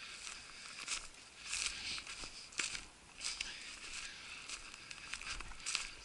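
Footsteps crunching through snow and dry weeds, soft and irregular, about one step a second.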